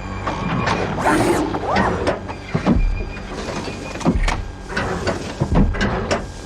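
Robot walking sound effects for ED-209: whirring servo motors and hisses, with a heavy low thud about every second and a half, one for each footfall.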